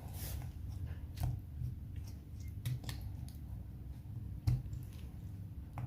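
Light clicks and taps of small plastic and metal phone parts being handled and fitted during reassembly, with one sharper knock about four and a half seconds in, over a steady low hum.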